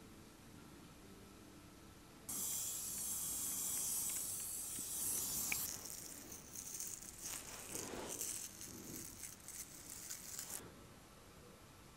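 Long acrylic nails scratching through a man's beard close to the microphone: a steady hiss starts about two seconds in, then turns to irregular crackly scratching that stops near the end.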